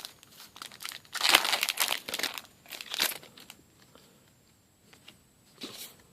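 Crinkling and rustling of a foil trading-card booster pack wrapper being handled, loudest in two bursts in the first half, then only faint rustles.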